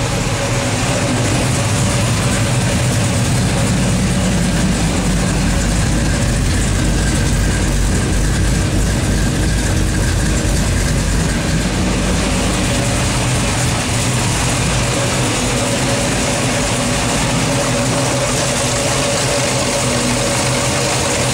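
Cammed LS V8 in an S-10 idling steadily through long-tube headers, a 3-inch dual exhaust and Flowmaster Big Block II mufflers. The engine has a Comp LSR cam, FAST LSXR 102 mm intake and Lingenfelter CNC LS3 heads.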